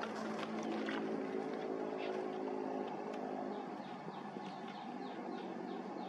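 Cinnamon bittern nestlings giving short, high, falling begging chirps, coming quicker in the second half, over a steady distant engine hum that fades out about halfway through.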